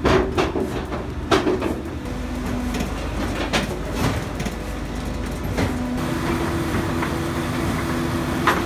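A heavy engine running steadily, with several loud clanks and knocks of metal or wood. The engine note shifts to a higher, steadier hum about six seconds in.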